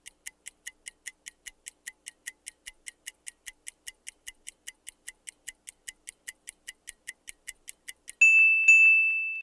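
Countdown-timer sound effect: a clock ticking steadily, about three ticks a second. Near the end the ticking stops and a bright chime rings out, struck twice and then held as a fading ring, marking time up.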